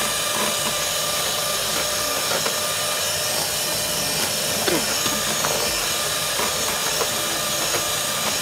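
Handheld electric mixer running steadily at high speed, its beaters whipping egg whites and lemon juice into meringue in a plastic container.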